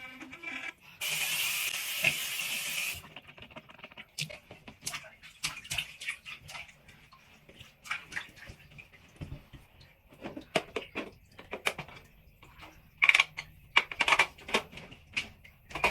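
A tap runs into a sink for about two seconds, then a long run of short, irregular scrapes and clicks, with a cluster of louder ones near the end.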